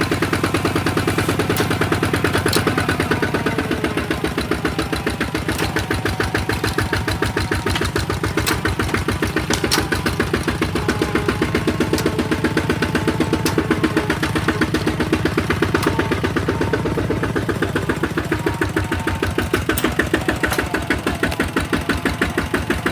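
An engine running steadily with an even, rapid thumping beat.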